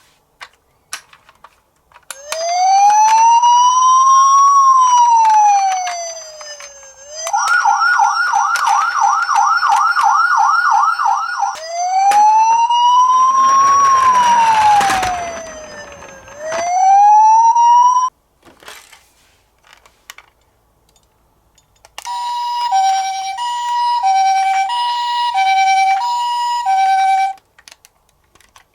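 Electronic siren sounds from toy ambulance and police minicars: a slow rising-and-falling wail, then a fast warbling yelp, then the wail again. After a pause comes a two-tone high-low ambulance siren, repeated about five times, with small clicks in the gaps.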